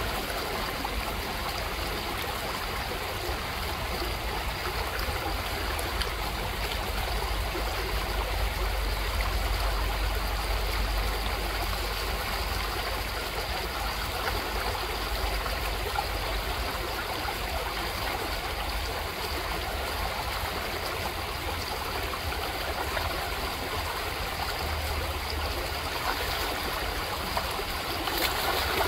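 Shallow gravel creek running over a small riffle: a steady rush and trickle of water.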